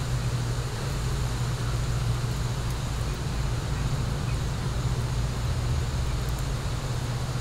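Steady low rumble like distant road traffic, with a few faint crackles from a wood fire burning in a fire pit.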